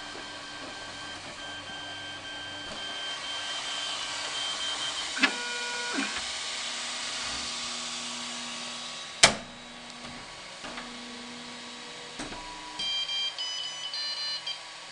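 Dremel 3D printer finishing a PLA print: stepper motors whine at steady pitches that change as the print head moves, over a steady fan hiss, with one sharp click about nine seconds in. Near the end comes a run of short high tones as the head travels aside and the build ends.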